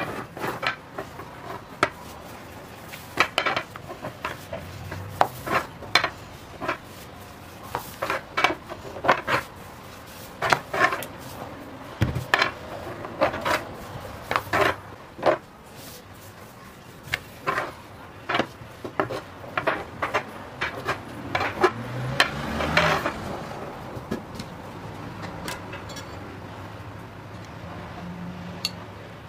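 Long thin rolling pin clacking and knocking against a wooden tabletop while dough is rolled out thin, in many short, irregular knocks that thin out over the last few seconds.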